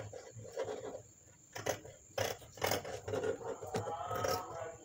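Scissors cutting fabric, a few sharp snips about half a second apart starting about a second and a half in, trimming away a dart allowance to reduce bulk.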